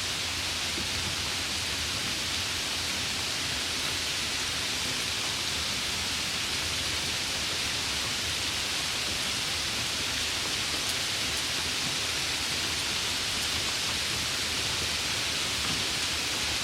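Steady rain: an even, unbroken hiss with no single drops or thunder standing out.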